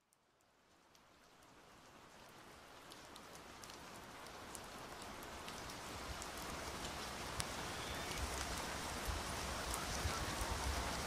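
Rain falling steadily, a hiss of noise dotted with the sharp ticks of single drops, fading in from silence and growing louder; a low rumble joins about six seconds in.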